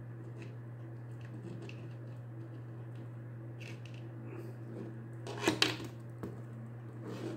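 Plastic action figures being handled and moved on a wooden tabletop: faint clicks and taps, then a louder knock and rustle about five and a half seconds in. A steady low hum runs underneath.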